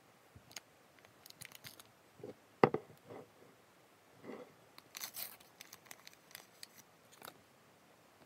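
A foil tea-bag sachet handled and torn open: scattered crinkly clicks, a short crackling rip about five seconds in, and one loud knock near three seconds.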